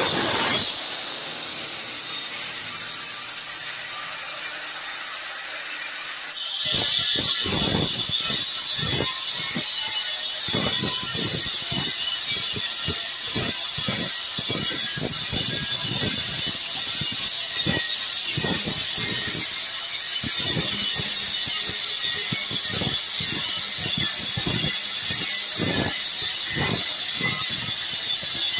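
Electric angle grinder with a cutting disc working along the joints of ceramic wall tiles to cut them out. After a moment it runs free with a steady high whine, then about six and a half seconds in the disc bites into the tile joint and a rough, uneven grinding starts, continuing to the end.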